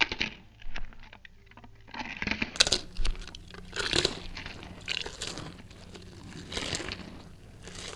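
Pretzels being eaten noisily: an irregular run of crunching and crinkling crackles, thickest from about two seconds in.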